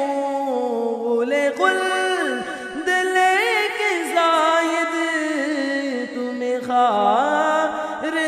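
Male voice singing an Urdu naat, drawing out long, wavering melodic notes without clear words.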